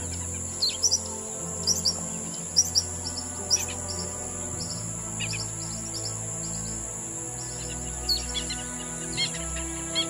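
Small birds chirping in short, quick clusters, over soft sustained background music and a steady high-pitched hiss.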